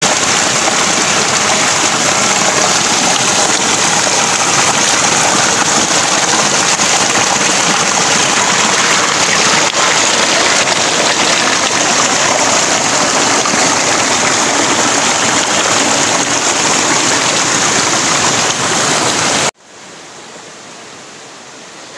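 River water cascading and rushing between boulders close up, a loud, steady rush. About 19 seconds in it cuts off abruptly to a much quieter rush of shallow rapids.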